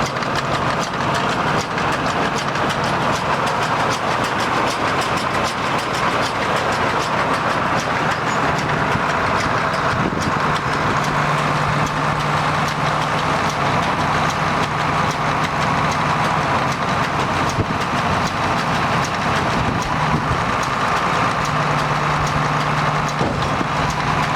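Vermeer 605K round baler running, driven by a tractor, with a steady rapid mechanical clatter over a low engine hum.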